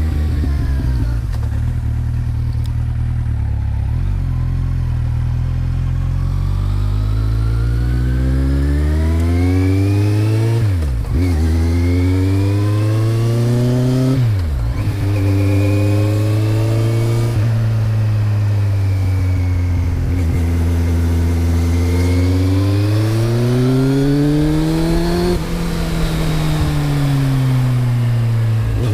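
Kawasaki Z1000's inline-four engine through a Mivv GP exhaust with the dB killer fitted. The revs climb slowly, dip sharply twice in quick succession, hold steady for a while, then rise and fall again near the end.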